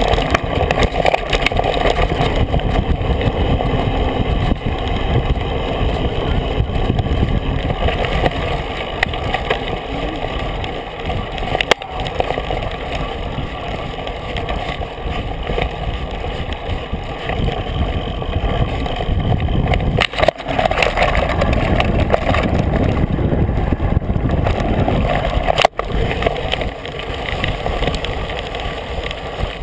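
Steady rumble and rattle of a mountain bike rolling over a dirt forest trail, picked up through a camera mounted on the bike.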